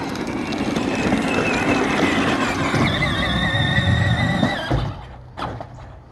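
Peg Perego John Deere ride-on toy tractor's electric drive running hard with a high whine as it climbs a ramp, cutting off a little under five seconds in, followed by a single knock.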